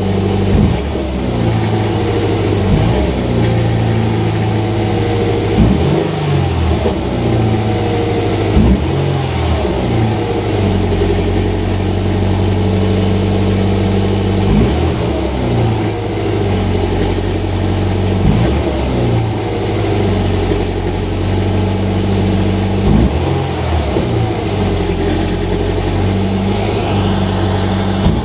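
Subaru BRZ's flat-four boxer engine idling while stationary, with the throttle blipped about eight times, each rev rising and falling back to idle. The blips are meant to bring out a rattling resonance ('karakara') whose cause the owner has not found.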